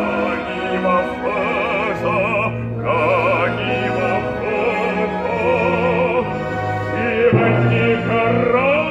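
An operatic voice sings with a wide vibrato over an orchestra holding low sustained notes. The sung line breaks off briefly about three seconds in, then carries on.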